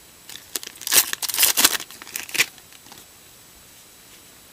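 Foil wrapper of a baseball card pack being torn open and crinkled by hand: a flurry of sharp crackles over about two seconds, which dies away near the middle.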